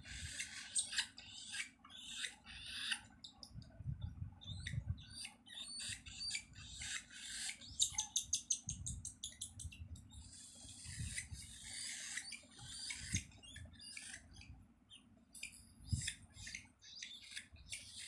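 Parrots chirping and squawking in short, high-pitched calls, with a quick run of calls about eight seconds in.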